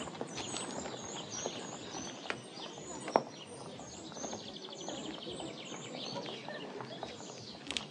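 Small birds chirping and twittering, with a rapid trill near the middle. A few sharp clicks, the loudest about three seconds in.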